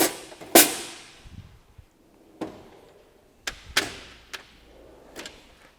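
Steel drawers of a Snap-on EPIQ tool chest being slammed shut and pulled open on their slides: a series of sharp metal bangs and clunks, the loudest about half a second in, with more around two and a half, three and a half to four, and five seconds in.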